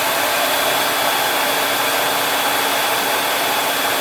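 Conair Infinity Pro hair dryer running steadily: a continuous rush of air with a thin, steady high whine.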